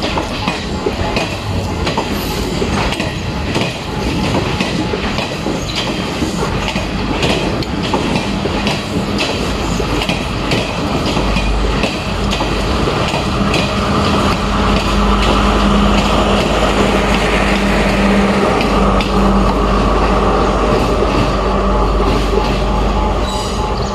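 Sri Lanka Railways Class S12 diesel multiple unit running past close by, its wheels clicking steadily over the rail joints. A steady hum joins in about halfway through.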